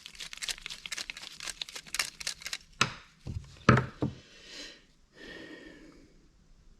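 Hands working on small carburetor parts on a bench: a dense run of crinkling and clicking, then a few sharp knocks about three to four seconds in, and a short soft rustle before it goes quiet.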